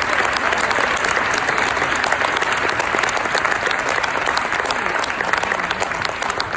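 Audience applauding: a dense patter of many hands clapping that begins to die down near the end.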